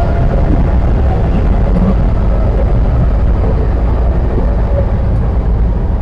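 Cable car (doli) running along its cable: a loud, steady low rumble with a faint steady whine above it.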